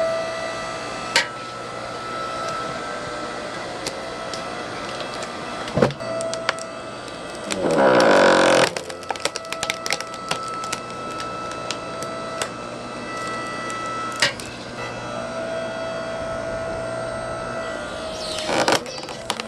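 Hydraulic log splitter running with a steady hum while it splits firewood logs. Wood cracks and creaks as it is forced apart, with a loud drawn-out creak falling in pitch about eight seconds in and another near the end. Sharp cracks come scattered in between.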